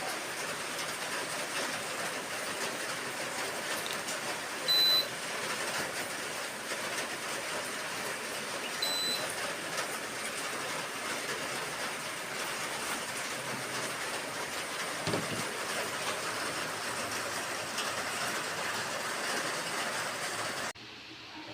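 Air conditioner running, a steady rushing hiss of moving air, with two short high electronic beeps from its control board about four seconds apart. The noise drops away suddenly near the end.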